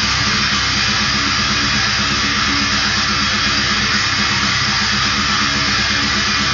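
Heavily distorted electric guitar playing a fast death metal riff, picked in a quick, even pulse without a break.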